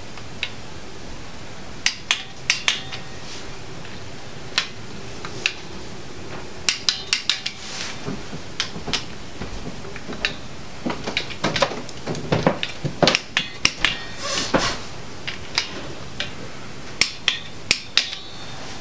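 Sharp metallic clicks and clinks of a torque wrench and socket on the oil pump's mounting bolts as they are torqued down. The clicks come in irregular clusters, thickest about two-thirds of the way through.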